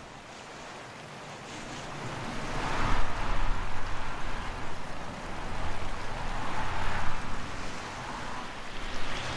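Wind rushing through bare treetop branches, swelling in two gusts and easing off between them.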